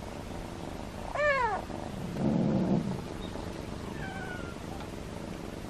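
A domestic cat meows once about a second in, a short call that rises and falls. It is followed by a low rough noise lasting under a second, then a faint, falling high call near the end.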